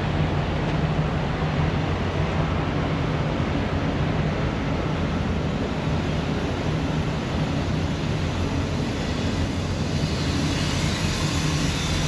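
Steady low hum and rumble of an idling diesel semi truck heard up close beside the trailer, with a faint high hiss coming in near the end.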